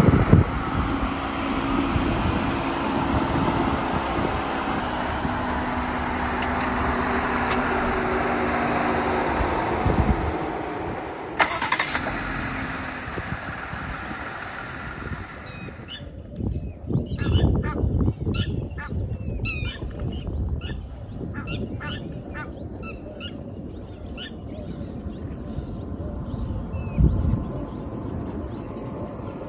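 A vehicle driving, with steady engine and road noise whose engine pitch shifts a few times. It fades out about halfway through, leaving many quick, high bird chirps.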